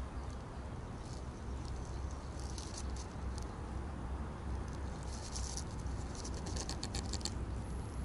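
Soft rustling and light crackling in the leaf litter and grass, coming thicker in the second half as a cat walks up to the ground-level microphone, over a steady low rumble.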